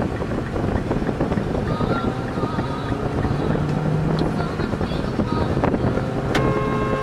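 Steady road and wind noise inside a car moving at highway speed. About six seconds in, a car horn starts sounding and is held.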